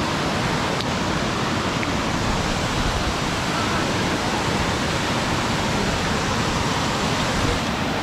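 Waterfall's water crashing down, a steady, even rush.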